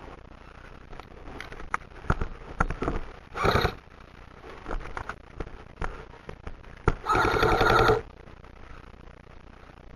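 Airsoft guns firing. Scattered single shots come first, then a short full-auto burst about three and a half seconds in. A longer, louder full-auto burst of about a second follows near the seven-second mark.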